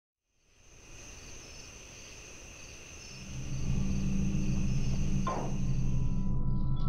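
Insects chirping in a steady high trill that fades in at the start, joined about three seconds in by a louder low hum; the chirping stops shortly before the end.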